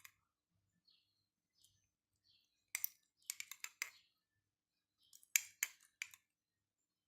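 Quiet, sharp clicks and light clinks of a kitchen utensil in three short clusters, the first a little under three seconds in and the last about five and a half seconds in.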